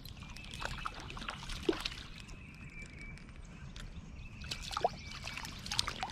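Water splashing and dripping in short, irregular bursts, with scattered clicks and knocks. A faint, high, steady insect-like trill comes and goes behind it.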